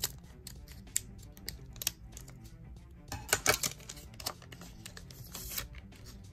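Scissors snipping through the top of a foil trading-card booster pack, a few sharp clicks about a second apart, then a burst of foil wrapper crinkling about three seconds in as the pack is opened and handled. Soft background music runs underneath.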